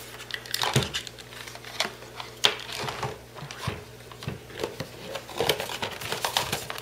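Handling noise as hands move a plastic iPad audio dock (Griffin StudioConnect), its cables and its box: irregular small clicks, knocks and rustles.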